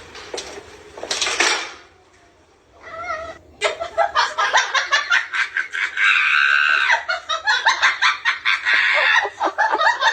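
A cat meowing and caterwauling: a short call about three seconds in, then louder, busier cat noise with one long drawn-out yowl in the middle.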